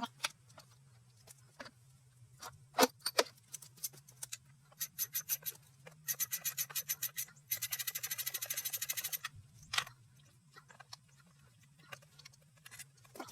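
Ratchet wrench clicking in short runs, the fastest for about two seconds in the middle, with scattered metal tool clicks before and after. A steady low hum runs underneath.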